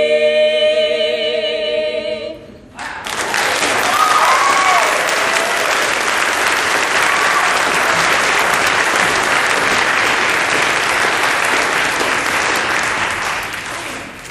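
An a cappella barbershop quartet holds its final chord, with vibrato, for about two seconds and cuts off. About a second later the audience breaks into applause, which goes on steadily and fades away near the end.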